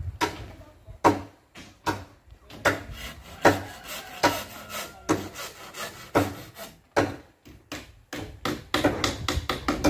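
Irregular knocks and scrapes of wood and bamboo, about one or two sharp knocks a second with rubbing in between, as the bamboo hut and its timbers are worked on.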